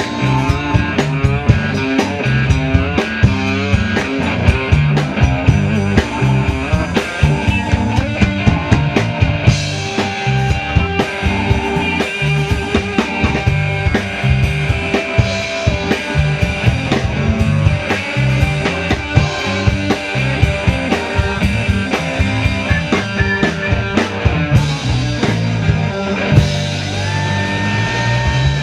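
Live rock band playing an instrumental stretch with no vocals: drum kit keeping a steady beat under bass and electric guitar. A held note bends upward near the end.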